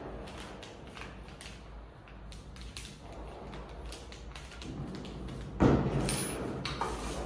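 Office chair parts handled during assembly: the plastic wrap on the chair backrest rustling, with scattered small taps and clicks. About five and a half seconds in comes a sudden louder clatter and rustle that lasts about a second and a half.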